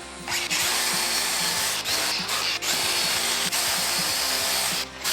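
Powered wire wheel scrubbing the scale off a forged steel railroad-spike knife handle, a steady harsh rasp starting about a quarter second in, with a brief break near the end as the work is lifted off.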